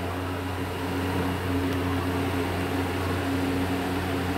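Steady electrical hum with a low drone and a higher tone above it, from a ceiling fan motor that is switched on but not turning after it went off with a pop.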